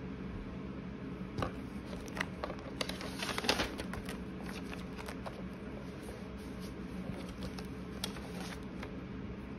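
Paper rustling with light taps and clicks as sheets, a pen and sticky notes are handled on a desk, busiest a few seconds in with one more tap near the end. Under it runs a steady low hum of room tone.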